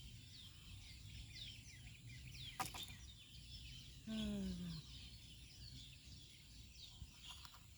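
Birds chirping faintly, a steady stream of short, high, falling chirps. A sharp click comes about two and a half seconds in, and a brief falling hum of a man's voice about four seconds in.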